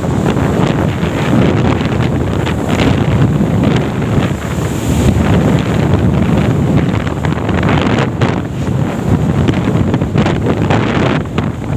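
Loud, steady rush of wind buffeting the microphone of a phone carried on a moving motorbike at road speed.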